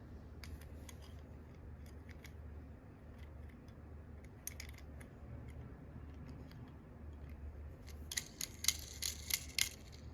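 Tomica die-cast toy cars and their plastic cases being handled: scattered light clicks and taps, then a quick run of sharper, louder clicks near the end.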